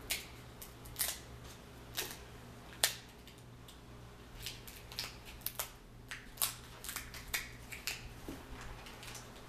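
Scissors snipping through king crab leg shell: sharp, crisp clicks, about one a second at first, then coming quicker and closer together in the second half.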